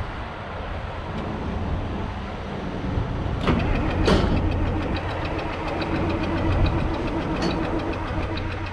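John Deere 4430's six-cylinder diesel engine starting: two sharp strokes about three and a half seconds in, then it settles into a steady idle with an even diesel clatter.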